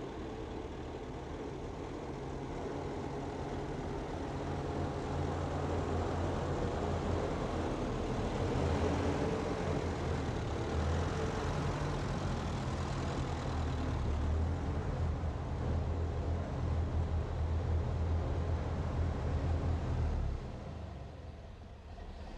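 Small vintage farm tractor engine running steadily as the tractor drives up and into a barn, growing louder as it comes close. The engine stops near the end.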